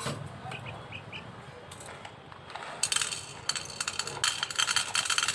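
Baby myna (shalik, a starling) begging to be fed. A few short chirps, then from about three seconds in a fast, harsh, rasping run of begging calls.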